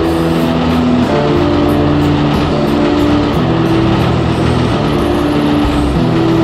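Loud background music: held chords that change pitch about once a second over a rough, hissy wash.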